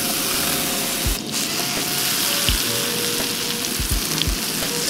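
Halved puffball mushrooms frying in foaming butter in a pan: a steady sizzle, with a few low knocks as they are moved about.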